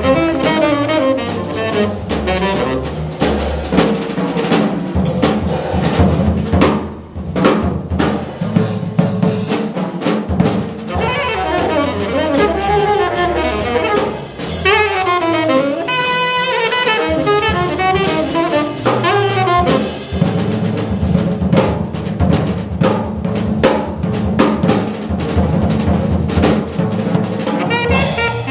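Live jazz trio: a tenor saxophone plays quick, winding runs over plucked upright bass and a drum kit with cymbals.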